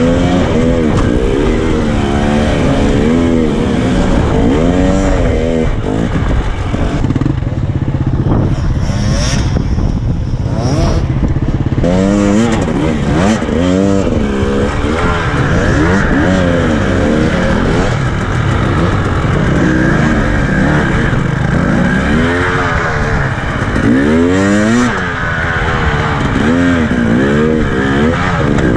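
KTM enduro motorcycle engine revved in short throttle bursts, the pitch rising and falling every second or two as the bike is worked over loose boulders, with a steadier, lower-revving stretch partway through.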